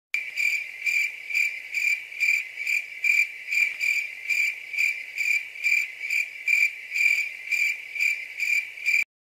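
Cricket chirping sound effect: a steady high-pitched chirp repeating a little over twice a second, starting abruptly and cutting off sharply near the end.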